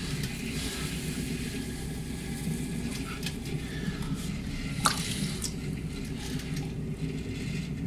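A potter's wheel runs with a steady hum, under the wet slipping and squishing of slip-covered hands on spinning clay as the pot's wall is pulled up. A single sharp click comes about five seconds in.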